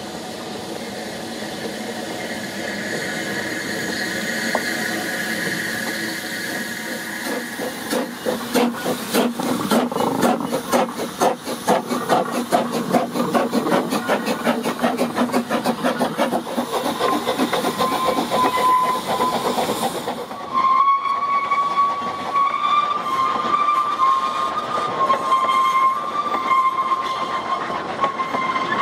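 Double Fairlie steam locomotive 'David Lloyd George' with its train: steam hissing as it approaches, then regular exhaust beats and wheel clatter as it passes close by. In the last part, high wavering ringing tones sound on and off.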